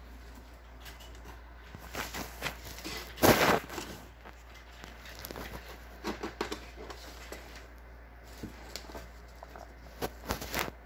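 A kitten scrabbling among paper file folders in a cardboard box: scattered rustles, crinkles and scratches of paper and cardboard, with one louder rustle a little over three seconds in.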